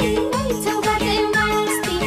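Nepali Teej folk song: a woman singing over a steady drum beat and instrumental backing.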